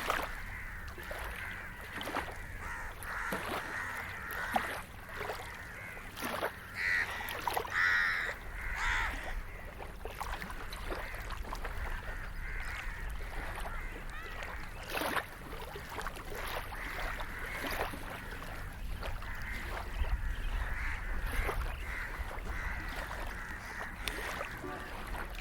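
Waterside ambience: water lapping and splashing in many small irregular strokes, with birds calling now and then, louder about seven to nine seconds in, over a low steady rumble.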